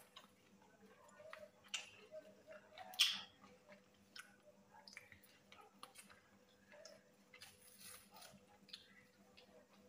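Faint chewing and biting from two people eating egg rolls quickly, with scattered small mouth clicks and a louder sharp click about three seconds in.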